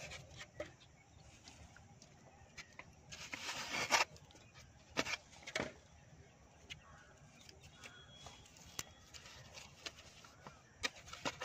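Ingredients being added to a steel bowl of gram flour: a short rustling pour about three to four seconds in, and a few light clicks and taps.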